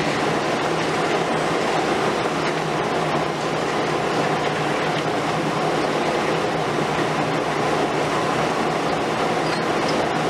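Liebherr R 950 Demolition long-front excavator running steadily under load, its diesel hum under a continuous clatter and crunch of concrete and masonry breaking away from a building and falling.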